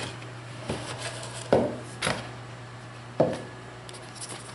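A cardboard product box being handled and opened, with four or five short knocks and light rubbing as it is set down and bumped on a wooden tabletop.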